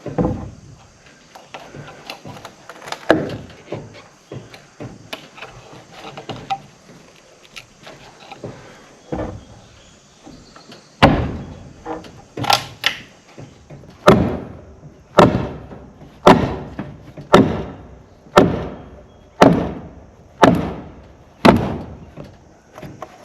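Hammer blows in barn framing work: a few scattered knocks, then a steady run of sharp strikes about once a second, typical of driving nails.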